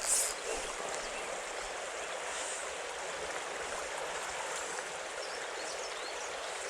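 Small stream flowing over rocks: a steady rushing of water, with one short high hiss right at the start.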